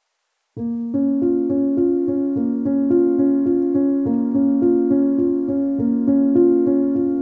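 Background keyboard music with a steady beat, starting abruptly about half a second in after silence.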